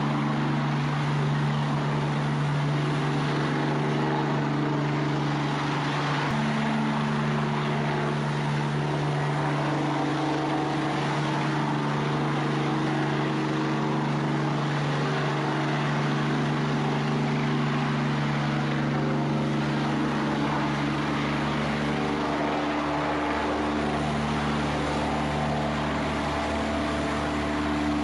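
Helicopter engine and rotor running steadily, a constant droning tone with a hiss above it; the pitch shifts slightly near the end.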